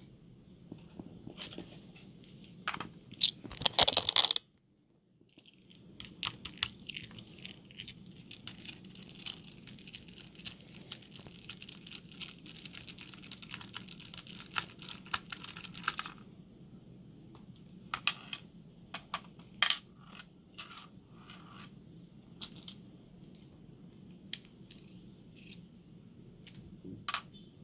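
Small metal clicks, taps and scraping from handling a padlock and hand tools at a workbench. A loud cluster of clatter comes about 3 to 4 seconds in, then a steady scratchy rasp for about ten seconds, followed by scattered sharp clicks.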